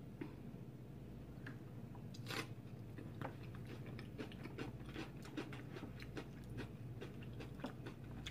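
Chewing and biting into a mouthful of veggie nachos with raw pepper: a few soft crunches at first, then a steady run of small crisp crunches, several a second, from about two seconds in.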